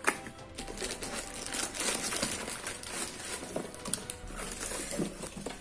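Clear plastic wrapping crinkling and cardboard box flaps rustling and scraping as a boxed electronics unit is unpacked by hand, with many small crackles throughout.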